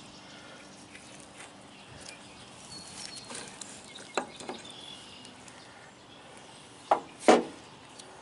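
Two loud metallic clunks close together about seven seconds in, as the removed cylinder mounting pin is set down on the excavator's sheet-metal body, after a lighter knock a few seconds earlier. Faint bird chirps over quiet outdoor background.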